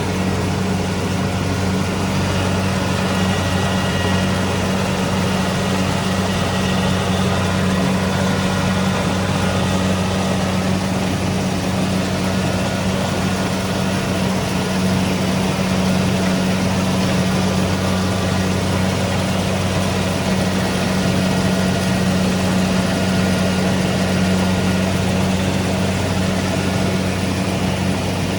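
Kubota DC-70 Pro rice combine harvester's diesel engine running steadily, a constant low hum with no change in speed.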